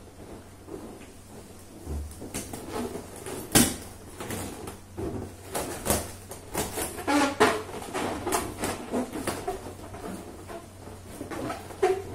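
Inflated latex balloons being handled and pressed together: irregular rubbery squeaks, rubs and soft knocks, with the sharpest knock about three and a half seconds in.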